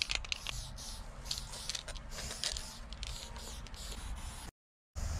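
Aerosol spray paint can hissing in many short bursts of varying length as paint is laid on, briefly cutting out near the end.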